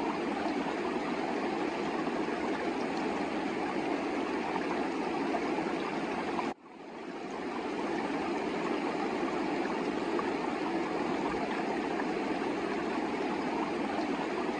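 Himalayan river water rushing steadily. The sound cuts out abruptly about halfway through and fades back in over a second.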